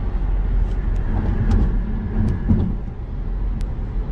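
Road and wind noise of a car driving at highway speed, heard from inside the cabin: a steady low rumble with a few faint clicks.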